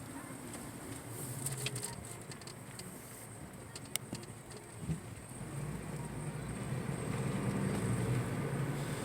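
A vehicle driving slowly, with a steady low engine and road rumble that grows louder about halfway through, and a few light clicks early on.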